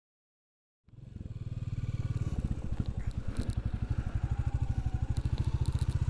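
Royal Enfield Classic 350's single-cylinder engine running with a steady, even pulse, fading in from silence about a second in and growing louder.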